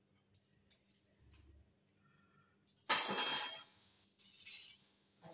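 A single sharp clink of kitchenware about three seconds in, ringing briefly, followed by a softer scrape; otherwise only the faint, near-silent dabbing of a silicone pastry brush on the dough.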